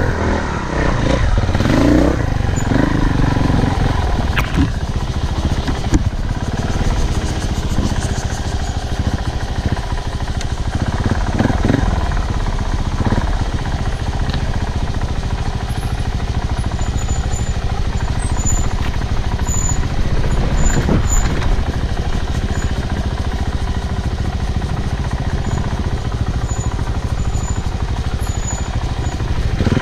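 Off-road motorcycle being ridden along a dirt trail: a steady, loud rumble with rattle and jolts.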